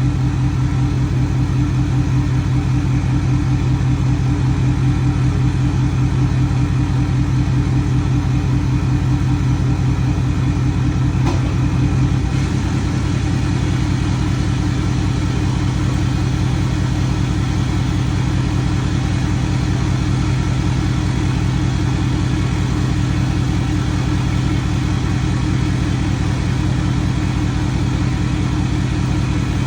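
Ford F-250 Super Duty diesel pickup idling steadily, with an even low pulsing; the idle note shifts slightly about twelve seconds in.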